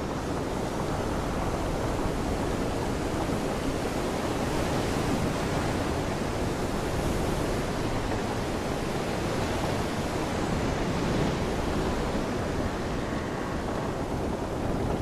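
Steady rush of rain and wind, with wind buffeting the microphone.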